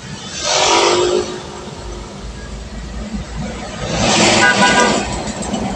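Road traffic: two vehicles rush past close by, one about half a second in and a louder one around four seconds in, over the steady low drone of the road.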